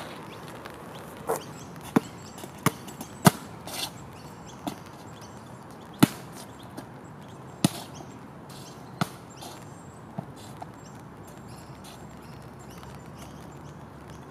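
A basketball bouncing on a hard court: a quick run of sharp thuds about every half second for the first few seconds, then a few more widely spaced bounces that stop about ten seconds in.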